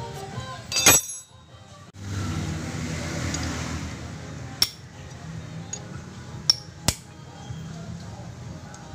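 Metal tools and small steel engine parts clinking against the open engine case: one loud, ringing clink about a second in, then three sharper clinks later on, over a steady background.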